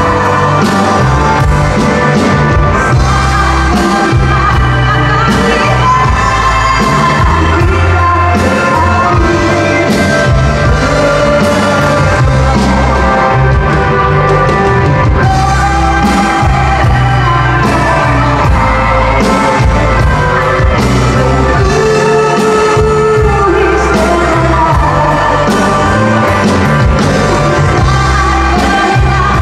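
A woman singing live with a rock band: electric guitars, bass guitar and drum kit playing a pop-rock song, loud and steady throughout.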